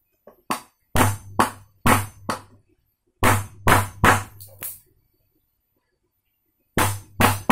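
Claw hammer striking a Tekiro wood chisel, driving its blade into a block of wood. Sharp knocks come in three quick runs: about six blows, a pause, about five more, then a longer pause and two or three more near the end.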